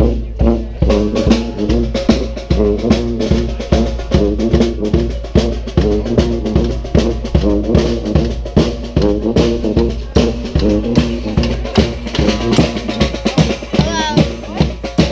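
Street brass band playing a rock-style tune: bass drum and snare keep a steady beat under the horns.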